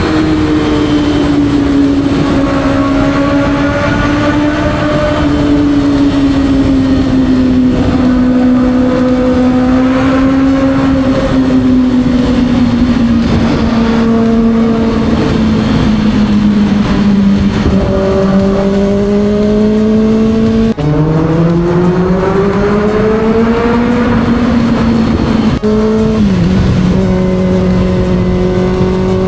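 Kawasaki ZX6R's 636 cc inline-four running at high revs through an aftermarket exhaust. Its high engine note sags slowly, drops suddenly about two-thirds of the way through, climbs again, and steps down once more near the end.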